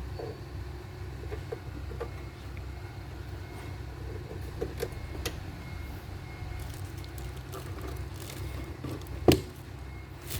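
Scattered light clicks and taps of hands and tools working on panel wiring, over a steady low rumble, with one sharp, louder knock about nine seconds in.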